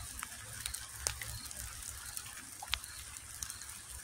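Faint outdoor background hiss with a low rumble and a few soft, scattered clicks.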